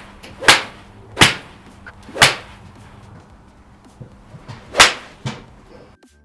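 Mizuno MP4 9-iron striking golf balls off a range mat, a sharp crack of club on ball in quick succession from several swings, four of them loud. Near the end the strikes stop and faint music comes in.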